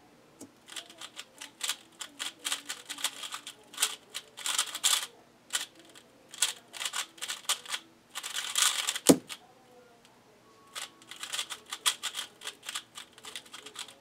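QiYi Valk 3 speedcube being turned very fast in a timed solve: dense runs of plastic clicks and rattles for about eight and a half seconds. A sharp thump about nine seconds in as the hands slap the keyboard to stop the timer. After a short pause the cube clicks again as it is turned for the next scramble.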